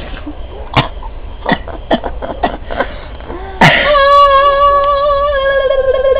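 A woman's voice: a few short, sharp vocal sounds, then a sudden loud, high, steady held note with no words, lasting over two seconds and wavering near the end.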